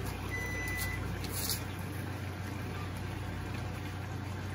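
Steady low electrical hum of a kitchen with faint background noise; about a second and a half in, a short papery rip, typical of a gravy-mix packet being torn open.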